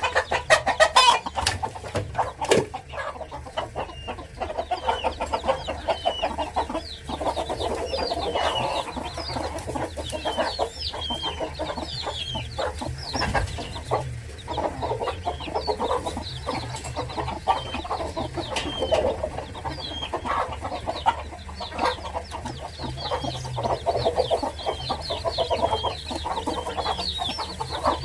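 Silkie hen clucking continually to her chicks while the chicks peep in short, high chirps. A quick run of clicks comes in the first couple of seconds.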